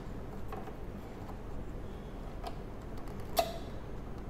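A few small clicks and handling noises as a probe's connector is fitted to the oscilloscope's input, with the sharpest click about three and a half seconds in, over a low steady hum.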